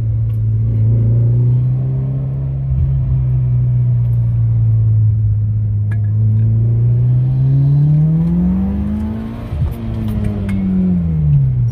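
Mitsubishi Lancer Evolution VIII's turbocharged four-cylinder engine, fitted with GSC S2 camshafts and a Greddy exhaust, pulling at steady revs. After about seven seconds the revs climb for about two seconds, then fall away near the end as the throttle is lifted.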